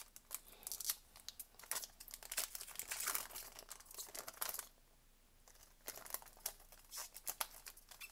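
Foil trading-card booster pack being handled and torn open: irregular crinkling and tearing of the foil wrapper, with a short lull about halfway through.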